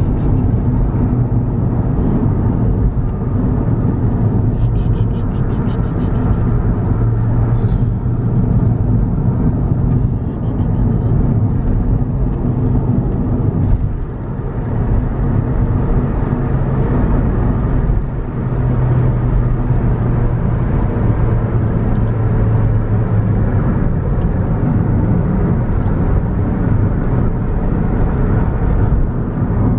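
Road and engine noise inside a car cabin while cruising on a highway: a steady low drone of tyres and engine that barely changes.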